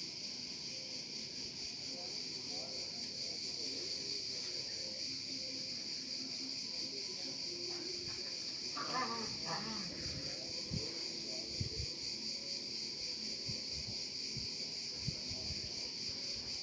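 A steady, high-pitched chorus of insects chirring in the background without a break. A short pitched cry is heard about halfway through, and a few soft knocks come near the end.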